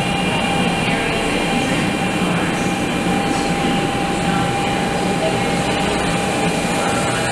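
JR West 500 series Shinkansen pulling into the station, its cars rushing past along the platform with a steady, loud rush and rumble. A steady whine runs through it.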